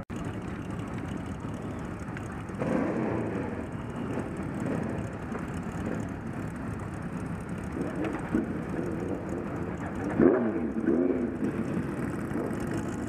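Several motorcycle engines running as a group of bikes pulls away, with throttles revving up and down. The loudest rev comes about ten seconds in.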